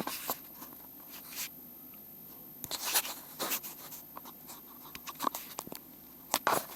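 Irregular scraping and rustling with scattered light clicks, as parts are handled and moved about in the car's interior.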